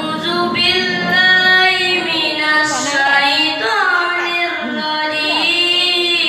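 A boy reciting the Quran in tartil style, his high voice chanting in long held notes with sliding, ornamented pitch.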